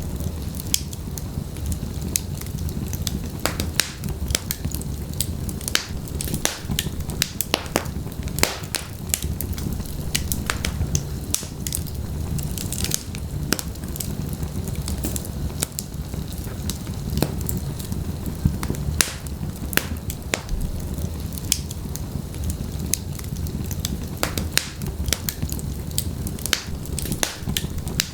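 Wood fire burning in a fireplace: a low steady rumble of flames with frequent sharp, irregular crackles and pops.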